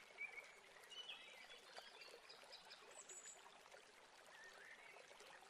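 Near silence: faint background hiss with a few soft, short high-pitched chirps.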